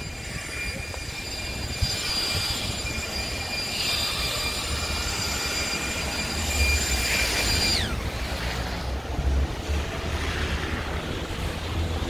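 City street traffic: a steady low rumble with a high steady whine that drops in pitch and stops about eight seconds in.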